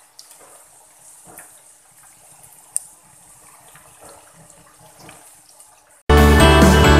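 Turon (banana spring rolls) deep-frying in a pan of hot oil: quiet sizzling and bubbling with small scattered pops, one sharper pop near three seconds in. Background music starts suddenly about six seconds in.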